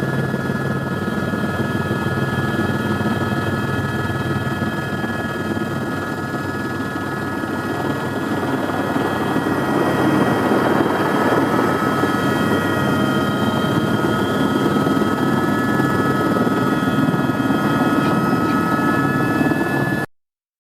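Helicopter in flight: steady rotor and engine noise with a high, even whine. It grows a little louder about halfway through, then cuts off suddenly near the end.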